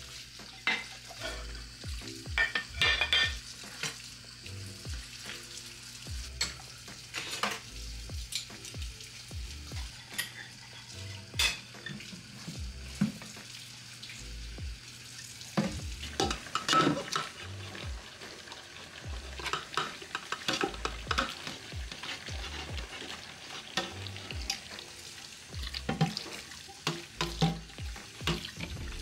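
Dishes being washed by hand in a stainless steel sink: tap water running, with plates and glassware clinking and clattering, and a sponge scrubbing a pot.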